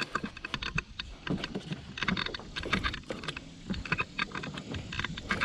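Irregular knocking and clattering in a small boat: many short knocks and clicks of varying loudness.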